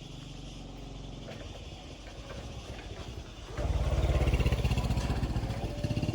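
A motor running with an even low pulsing that suddenly gets much louder about three and a half seconds in.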